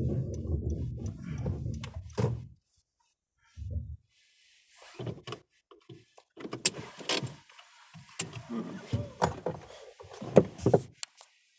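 Car sounds heard from inside the cabin: a low engine and road rumble that stops after about two seconds, then, after silent gaps, a run of scattered clicks and knocks, like a door or power window being worked.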